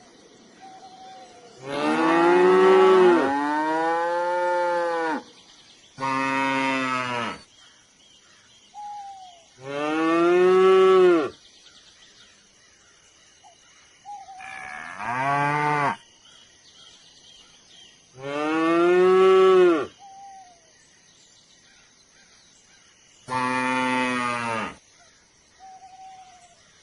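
Cattle mooing: six long, loud moos a few seconds apart, each rising and then falling in pitch, with a few short, faint calls in the gaps.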